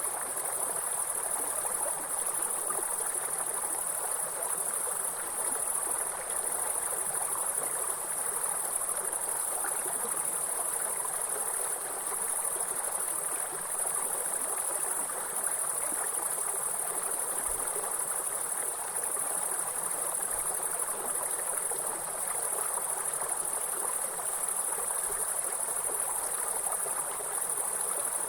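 A steady, high-pitched chorus of chirring insects over the even rush of a flowing stream.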